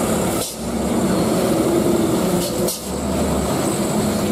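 Heavy diesel truck engines running under load while tanker trucks pull through a steep hairpin bend: a steady low drone that dips briefly twice.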